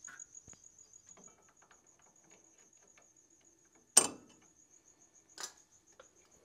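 A cricket chirps steadily in a fast, even pulse, about five chirps a second. About four seconds in comes a single loud, sharp clank as the rear brake hardware is handled, followed by a smaller knock about a second and a half later.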